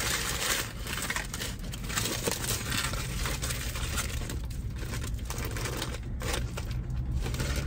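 Paper food wrapper and bag crinkling and rustling in irregular handling noises as a fast-food chicken sandwich is unwrapped, over a steady low hum.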